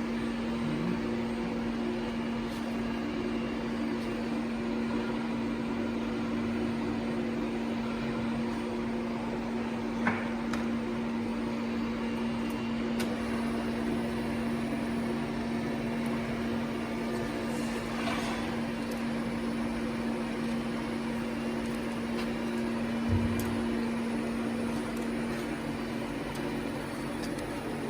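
Berg & Schmid GBS 270 horizontal metal band saw running with a steady motor hum, with a few light knocks or clicks.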